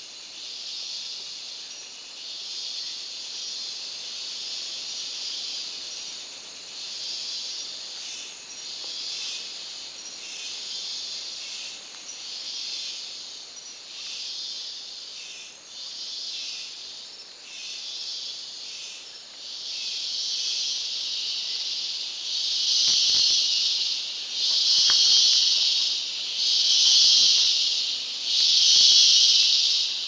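Tropical cicadas in a pulsing chorus, a hissing buzz that swells and fades about every two seconds and grows much louder in the last third.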